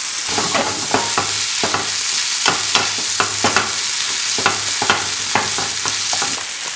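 Onions and garlic sizzling in a nonstick frying pan while a wooden utensil stirs them, scraping and tapping against the pan in irregular strokes about twice a second. The stirring stops shortly before the end.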